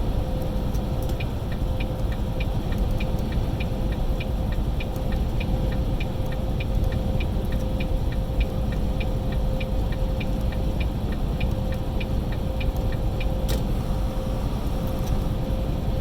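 Semi truck's turn signal clicking in the cab, about two to three clicks a second, stopping with a sharper click near the end. Under it the truck's engine and road noise run steadily, with a steady hum.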